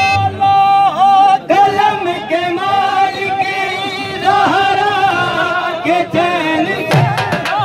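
A man singing a qasida unaccompanied in long held, wavering notes. Dhol drum strokes come in near the end.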